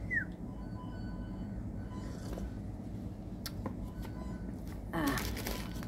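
Steady low hum of a fast-food dining room, with a couple of light clicks about halfway through. Near the end comes a short stretch of paper rustling as a sandwich wrapper is handled.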